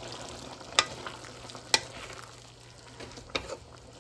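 Pork for igado sizzling in a pan while it is stirred, with the stirring utensil knocking sharply against the pan about four times.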